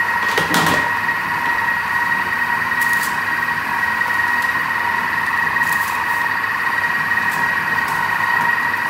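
Thermomix TM6 running its cooking program at speed 1 in reverse, a steady motor hum with a constant whine. A few light knocks from the buns and dish being handled come over it.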